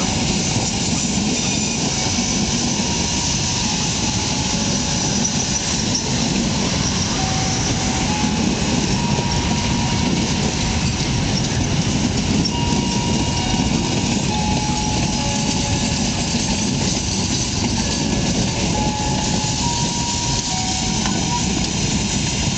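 Passenger coaches of a train rolling past close by: a steady, loud rumble of wheels on rails, with short, faint squeals from the running gear coming and going.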